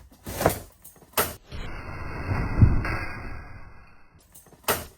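A Stroud 430 drag parachute pack springing open once its pin string is pulled, under more spring pressure than expected. Two sharp knocks come in the first second and a half, then a couple of seconds of rustling nylon as the chute comes out, and another knock near the end.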